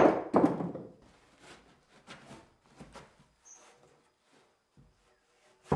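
Timber battens knocking on a wooden plank floor as they are handled: a loud thunk at the start and another at the very end, with a few light knocks and taps in between.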